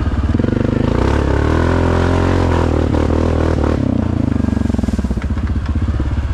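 Suzuki King Quad 750 ATV's single-cylinder four-stroke engine running through an HMF Performance series aftermarket exhaust, the revs rising about a second in and falling back about four seconds in.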